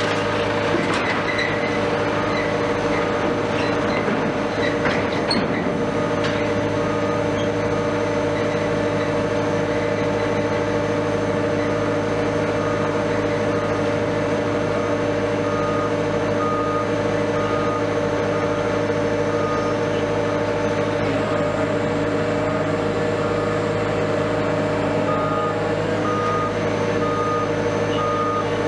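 Heavy diesel engine running steadily with a deep, even drone, while a vehicle's reversing alarm beeps repeatedly at a high pitch, stopping and starting again several times.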